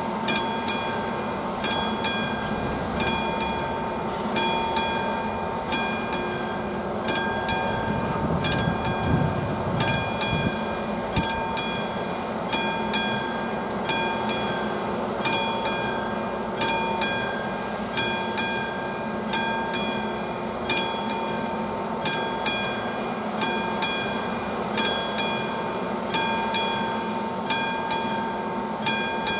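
Electromechanical bell of an AŽD 71 level-crossing warning signal ringing, struck at a steady even pace with each stroke ringing on: the crossing's warning is active for an approaching train. A low rumble swells briefly about eight to ten seconds in.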